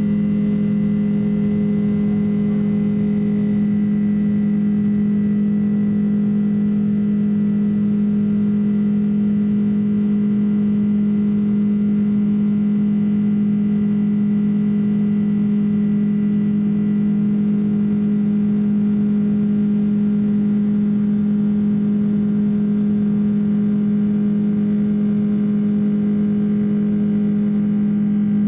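Boeing 767-300 airliner cabin during the climb after takeoff, heard from a seat by the wing engine: a steady turbofan drone led by one strong low hum, with fainter higher tones over a constant rush.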